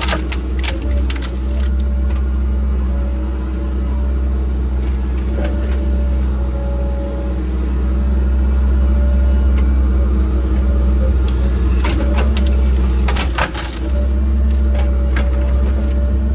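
An engine running steadily at a constant pitch, with branches and brush crackling and snapping in bursts at the start and again about twelve to thirteen seconds in.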